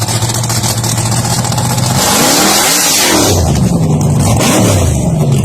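Car engine running at a steady pitch, then revved up and down several times from about two seconds in.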